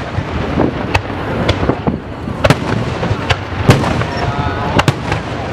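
Aerial fireworks display: about ten sharp bangs at irregular intervals over a continuous crackling din of further bursts.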